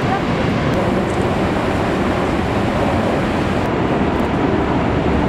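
Steady, dense rush of water pouring over Niagara Falls and crashing into the gorge below.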